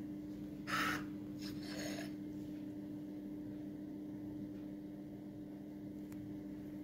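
Two short rasping rubs about a second in, the first louder, over a steady low hum.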